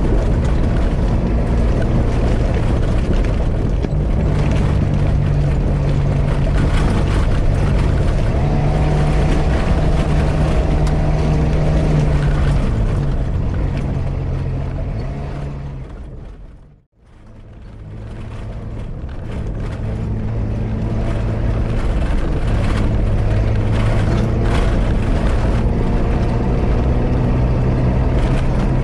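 Off-road 4x4's engine running under way over a rough dirt track, with road rumble and wind. The engine note steps down and up a few times. The sound fades out to silence and back in about two-thirds of the way through.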